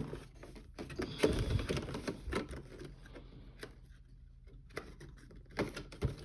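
Light, irregular clicks and taps from things being handled on a table. They are busiest in the first couple of seconds, almost stop around the middle, and pick up again near the end.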